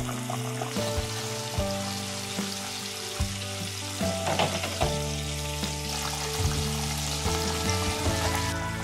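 Pieces of starch-coated horse mackerel deep-frying in a pan of hot oil: a steady sizzle and crackle of bubbling oil, over soft background music.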